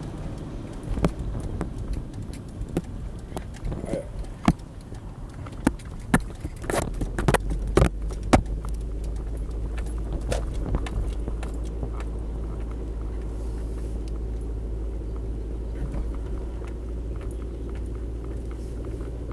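Car driving, heard from inside the cabin: steady low engine and road rumble, with scattered clicks and knocks over the first half, after which the low rumble grows stronger and steadier.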